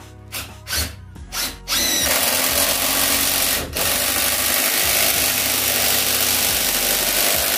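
18V cordless impact driver driving a long screw into stacked 2x4 lumber. A few short starting pulses come first, then about two seconds in it settles into continuous hammering, with one brief let-off partway through.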